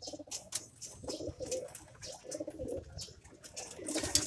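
Racing pigeons cooing in their loft, with several low, rolling coos overlapping one another across the few seconds. Short scattered clicks run between the coos.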